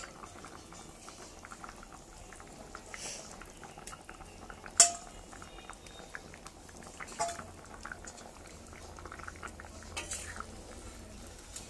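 Curry bubbling at a simmer in a wide metal pan, a steady fizzing crackle, with sharp clinks of metal utensils against the pan: the loudest about five seconds in, and lighter ones around seven and ten seconds.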